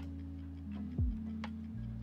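Background music beat: held low synth notes with a deep kick drum that drops in pitch about a second in, and sharp hi-hat-like ticks.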